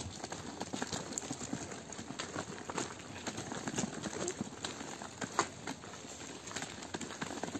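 Footsteps on hard ground while walking: irregular sharp knocks and scuffs.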